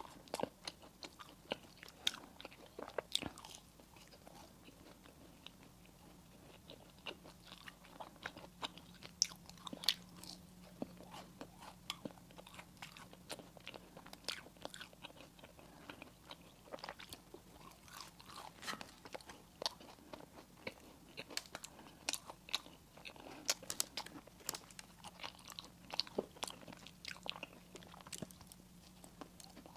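Close-miked eating of crunchy and soft dessert pastries: irregular crisp crunches and bites with chewing between them.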